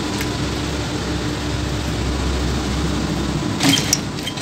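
Industrial sewing machine's motor humming steadily at rest, not stitching. A few short clicks and rustles come near the end as the padded cup and lining are handled under the presser foot.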